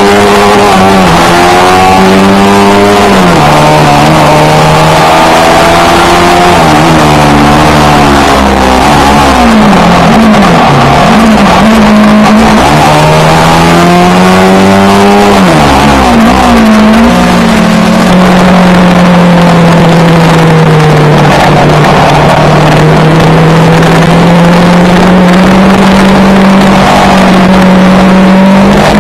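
Yamaha R3 parallel-twin engine with an aftermarket Akrapovic exhaust, ridden and revving up and down through the gears. The engine pitch drops sharply a few times at gear changes, wavers as the bike slows, then holds fairly steady over the last ten seconds or so, all under a heavy hiss of wind noise at a very loud recording level.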